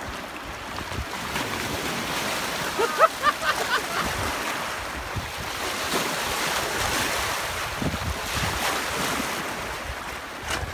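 River water splashing and lapping in rocky shallows, with wind rushing over the microphone. A brief louder cluster of short pitched sounds comes about three seconds in.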